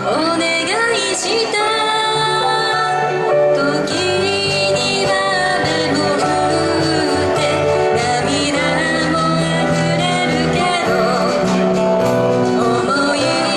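Female singing of a Japanese pop song over instrumental accompaniment, steady and loud throughout.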